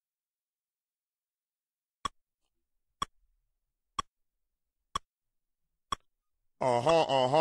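Five sharp, evenly spaced clicks about a second apart, like a count-in at the start of a music track. Near the end, a loud pitched sound comes in, its pitch bending up and down.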